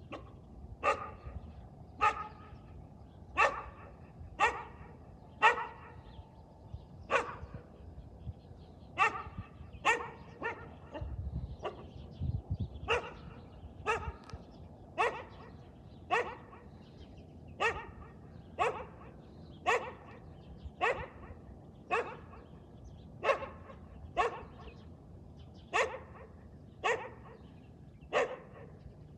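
A dog barking over and over in single short barks, about one a second, in a steady rhythm.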